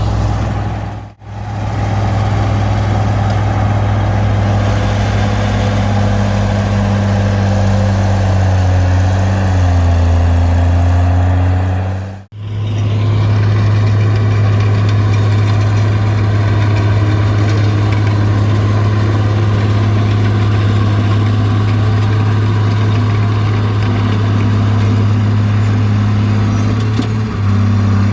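Small Komatsu D20P bulldozer's diesel engine running steadily with a deep hum, its note sagging around ten seconds in and then picking back up. The sound cuts out briefly twice, about a second in and about twelve seconds in.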